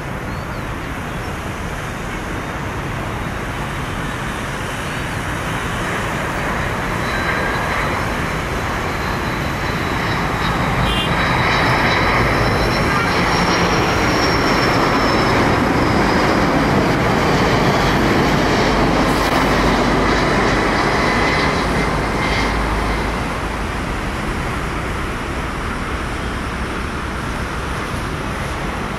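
Airbus A330-303 airliner's twin turbofan engines on final approach: a steady rushing jet noise that swells to its loudest about halfway through and then eases, with a thin high whine rising and falling over the loudest stretch.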